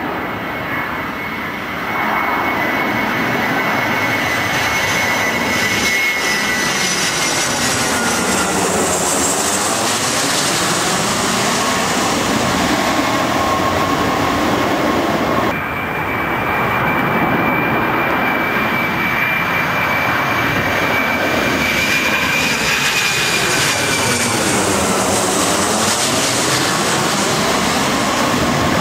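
Twin-engine jet airliners passing low overhead on final approach to land: steady jet engine noise with a high whine, and a whooshing sweep that slides down and back up as each one passes over. Two passes, with an abrupt cut between them about halfway through.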